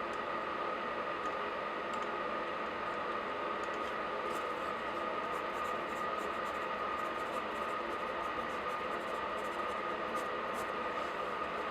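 Steady background hiss with a faint steady hum. Light, scattered desk-work clicks and scratches sit over it, more of them through the middle and later part.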